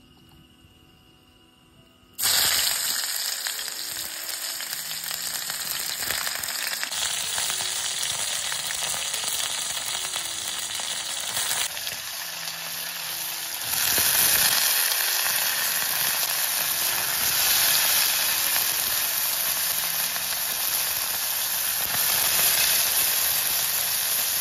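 Food frying in a hot pan: a loud, steady sizzle that starts suddenly about two seconds in and grows louder about halfway through.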